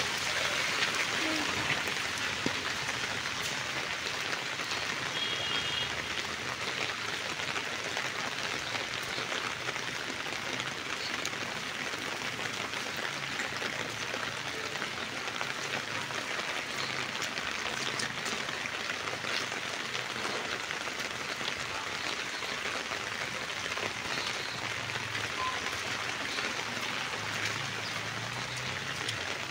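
Steady rain falling: a constant hiss with scattered drop ticks.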